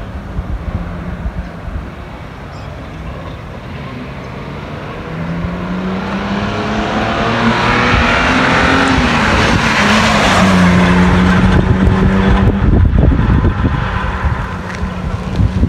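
A car with a 3-litre V6 engine drives up and past, its engine note and road noise growing louder as it approaches, loudest about ten seconds in, then fading.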